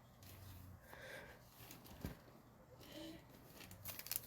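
Near silence: faint room tone with a few soft handling sounds and a single brief click about two seconds in.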